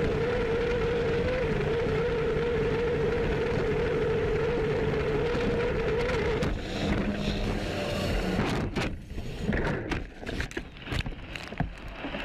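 Race boat's engine heard from on board, holding one steady pitch at full speed. About six and a half seconds in the tone breaks off into choppy rushing of water and wind, with a run of knocks and thumps as the boat crashes into spray.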